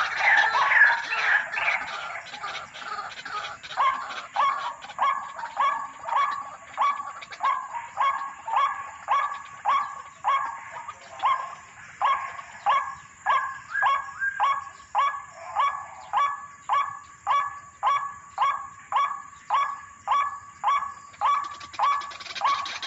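White-breasted waterhen (ruak-ruak) calling. A denser, louder stretch of calling in the first couple of seconds gives way to a steady series of short, falling notes repeated about one and a half times a second.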